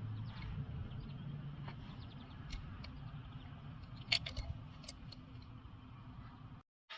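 Hand ratchet clicking as bolts are loosened by hand, with sharp metallic clinks of tool and bolts about four seconds in, over a low steady shop rumble; the sound cuts off abruptly near the end.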